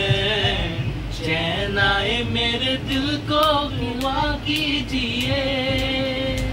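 Unaccompanied male singing, one melody line with long held, wavering notes, over a low steady rumble.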